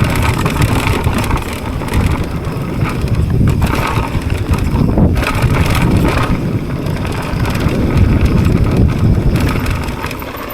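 Mountain bike riding down a rough dirt trail: a steady rumble of tyres and wind on the microphone, with frequent knocks as the bike rattles over bumps.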